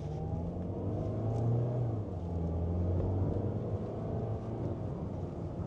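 Car engine accelerating as the car pulls away, its low drone rising in pitch over the first second and then running steadily under load.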